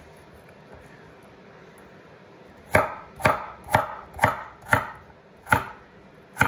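Kitchen knife chopping stacked jicama slices into matchsticks on a wooden cutting board: after a quiet start, seven sharp knocks of the blade on the board, about two a second.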